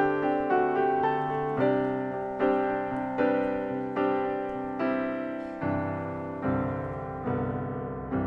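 Background piano music, notes and chords struck at a slow, even pace, each fading before the next.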